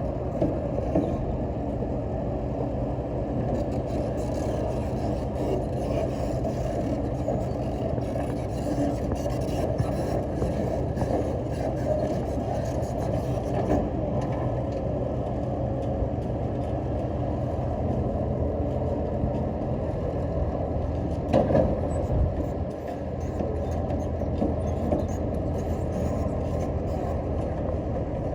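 Excavator's diesel engine running steadily under work, with a brief clatter of knocks about twenty-one seconds in.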